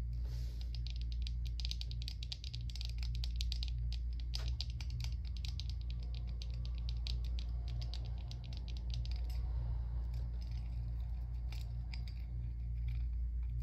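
Wire-framed sunglasses with dangling raindrop charms handled and put on close to the microphone: rapid small clicks and rattles of the metal frame and charms, thinning out after about nine seconds, over a steady low hum.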